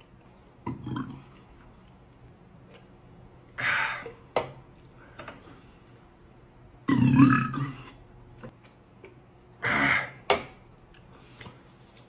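A man burping four times: a short, low burp about a second in, then three loud ones, the longest and loudest about seven seconds in.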